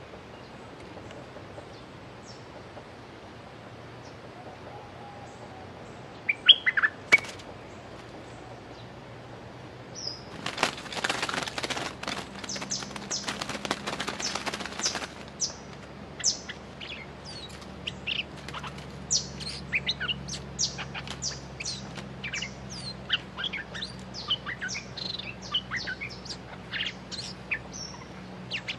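Stripe-throated bulbuls: a few loud sharp call notes about six seconds in, then a burst of wing flapping lasting several seconds, followed by a long run of short, quick chirps.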